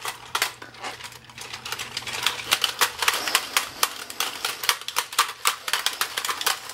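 Plastic Iron Man vs Hulk fighting toy (Battle Masters Superhero Slam) being played: rapid, irregular clicking and clacking of its plastic controls and figures, several clicks a second.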